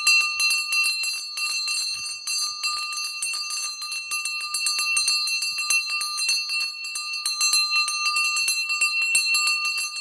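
Temple bell rung rapidly and continuously, its clapper striking several times a second so the ringing never dies down.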